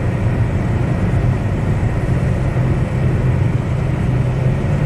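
Chevy Cobalt's 2.2-litre four-cylinder engine running steadily at about 2,000 rpm while cruising at about 50 mph, heard from inside the cabin with road and tyre noise.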